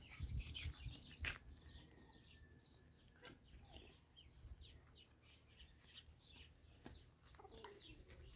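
Faint chirping of small birds: many quick, high chirps one after another, with a few footsteps on a dirt path.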